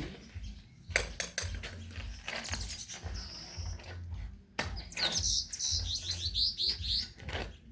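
A bird chirping: a short high whistle, then a quick run of about eight high chirps in the last few seconds, with a few sharp knocks about a second in and low wind rumble underneath.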